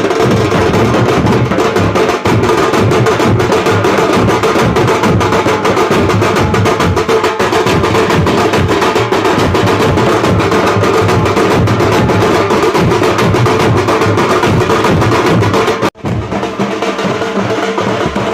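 Nasik dhol and tasha drums beaten together in a fast, dense rhythm. The drumming breaks off for a moment about sixteen seconds in and comes back quieter.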